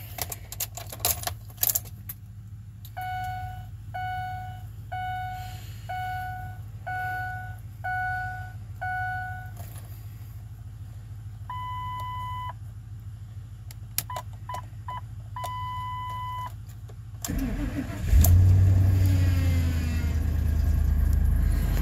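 Lincoln Navigator's dash chimes: seven even chimes about a second apart, then a longer tone and a few short beeps. About 17 s in the starter cranks briefly and the 5.4-litre V8 catches on a cold start, flaring up and settling to a fast idle.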